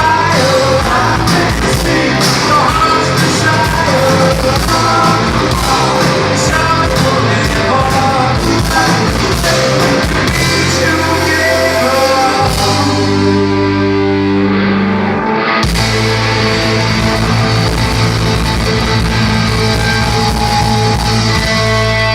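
Rock band playing live through a PA in a large hall, with drums, electric guitar and singing. About twelve seconds in the drums stop and held guitar and bass chords ring on, with a brief break a few seconds later.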